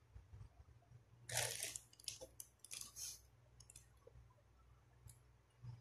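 A clear plastic bag rustling and crinkling in short bursts, the loudest about a second in, as toilet flush fittings are taken out of a plastic cistern tank, with light plastic clicks and knocks in between.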